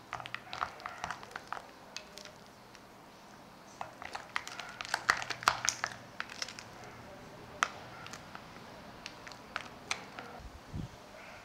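A spatula stirring and folding a thick cream mixture in a glass bowl, making wet squelches and sharp clicks against the glass in busy bursts, with a soft low thump near the end. The mixture is being worked until there are no lumps.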